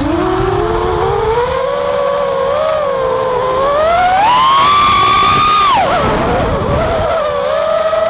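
Racing quadcopter's AOKFly 2300kv brushless motors on RK 5x4.5x3 props whining as they spool up. The pitch climbs steeply to a high peak past the middle, drops sharply soon after and then holds steady, with wind rumble on the onboard microphone.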